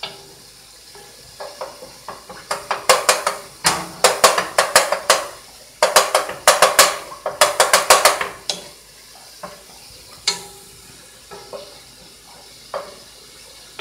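Wooden spoon stirring mushrooms in a nonstick pot, scraping and knocking against the pan in a quick run of strokes for several seconds, then a few single taps near the end. A faint sizzle of the mushrooms sautéing in olive oil runs underneath.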